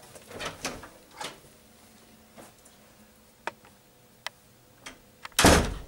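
Footsteps walking away, a few sharp single clicks, then a wooden door banging shut near the end, the loudest sound.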